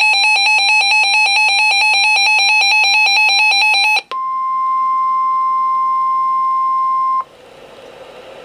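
Weather alert receiver's electronic alarm beeping in rapid pulses for about four seconds, then the steady 1050 Hz NOAA Weather Radio warning alert tone for about three seconds, cutting off sharply into radio static hiss: the signal that a warning broadcast follows.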